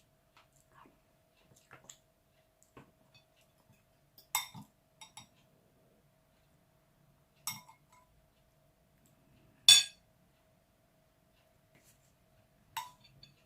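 Utensils clinking against a dish while eating soup: four sharp clinks a few seconds apart, the third the loudest, with faint small taps between.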